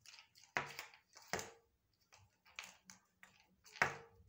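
A small toy ball knocked about on a terrazzo tile floor by a playing kitten: a run of about eight sharp taps and clatters at uneven intervals, the loudest near the end.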